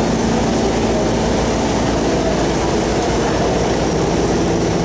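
Sand barge's engine running steadily at close range as the barge motors slowly past, a constant low drone.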